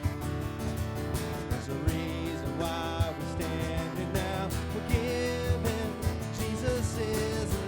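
Live worship band playing a praise song led by guitar, with a steady drum beat.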